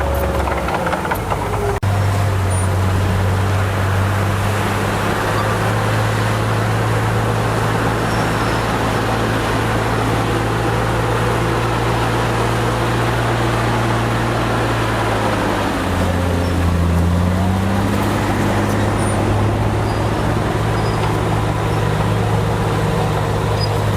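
Heavy diesel engine of earthmoving machinery running steadily. Its pitch drops about two-thirds of the way through and then climbs again as the load or throttle changes.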